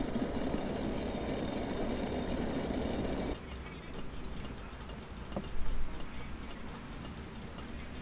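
Camp gas stove burner hissing steadily under a pot, cutting off abruptly a little over three seconds in. A quieter outdoor background follows, with a click and a short knock about two seconds later.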